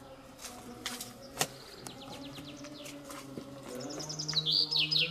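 A songbird singing: a few scattered chirps, then from about three and a half seconds in a loud, rapid run of short repeated notes.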